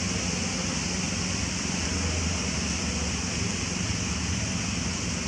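Steady outdoor background noise: an even high hiss over a low rumble, with no distinct events standing out.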